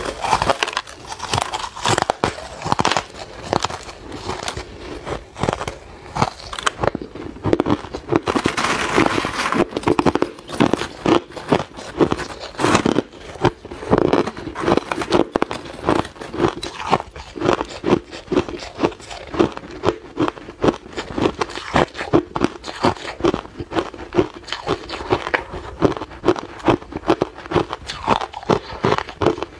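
Ice being bitten and chewed close to the microphone: dense crackling crunches at first, settling about halfway through into steady chewing crunches about two a second.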